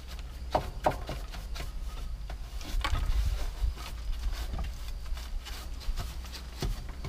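Small hand brush sweeping rabbit droppings across wooden hutch floorboards: a run of short, scratchy strokes with a few sharper knocks.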